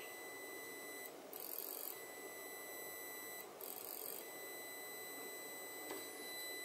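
Faint, steady high-pitched tone from an amplifier on a bench test: a Mackie SRM450 v2 amplifier at full power, fed a 1 kHz sine and driving a 100-watt load resistor. The tone cuts out briefly twice, about a second in and again midway, as the drive signal drops, with a short hiss in each gap.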